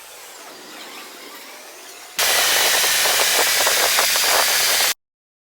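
Automatic car wash machine running: a faint whir, then a loud, steady rushing hiss that starts abruptly about two seconds in and cuts off suddenly near the end.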